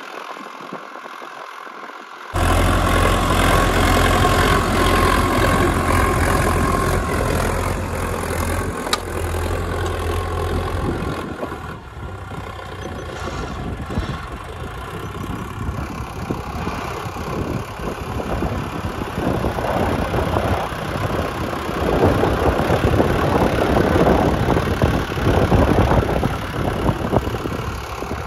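Sonalika DI 750 Sikander tractor's diesel engine running, loud and steady. It jumps in level suddenly about two seconds in with a deep drone, then turns rougher and more uneven from about eleven seconds in.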